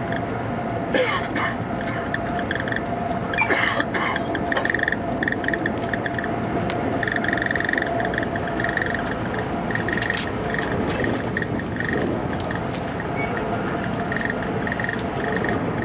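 Cabin noise of a German ICE high-speed train running at speed: a steady rush of rolling and wind noise with a faint steady whine. A few sharp clicks come about a second in and again around three and a half to four seconds.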